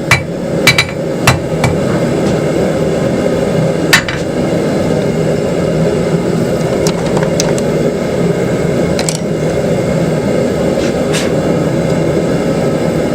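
Hand hammer striking hot square iron stock on an anvil while drawing it out: a quick run of about six blows in the first second and a half, one more hard blow at about four seconds, then a few light clinks. A steady roar runs underneath.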